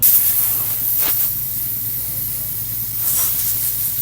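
A pressurised spray hissing in one steady blast that starts abruptly, used to clean a motorcycle engine's oil pump strainer screen.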